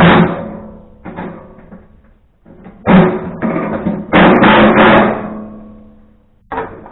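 Heavy metal clanks and knocks on the chipper's steel housing, about seven sudden strikes, each ringing out and fading, with the loudest cluster in the middle.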